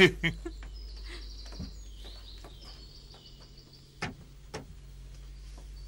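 Birds chirping faintly over a low steady background, then two sharp clicks about four seconds in as a car door is unlatched and opened.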